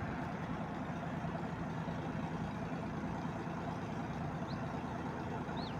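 A steady low mechanical hum, like an idling engine, with two faint, short, high chirps near the end.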